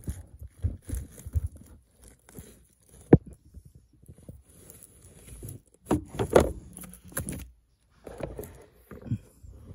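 Pleated cabin air filter being worked out of its plastic housing by hand: irregular plastic clicks and knocks with rustling and scraping of dry leaves and debris, busiest about six to seven seconds in. The filter is clogged with leaves.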